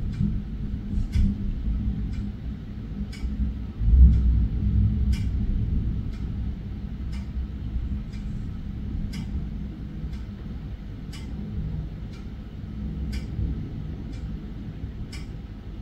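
Thunder rumbling, jumping sharply louder about four seconds in and then slowly dying away. A clock ticks about once a second alongside it.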